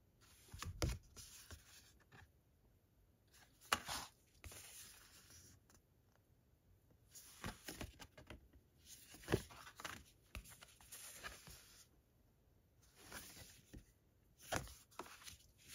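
Thick card prints being handled one after another: short sliding swishes of card against card every second or two, with a couple of sharp light clicks.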